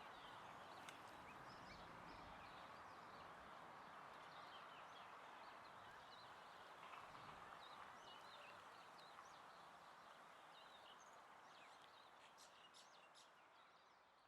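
Faint outdoor ambience: birds chirping over a steady hiss. It fades out over the last few seconds.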